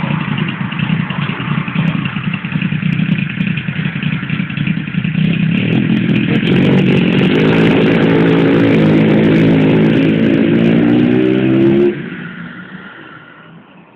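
Kawasaki Zephyr 1100's air-cooled inline-four engine running at idle, then held at higher revs with a slowly rising pitch for several seconds. About twelve seconds in it drops away abruptly, leaving fainter traffic noise.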